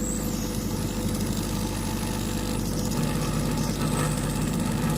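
A steady low mechanical hum with a constant pitch.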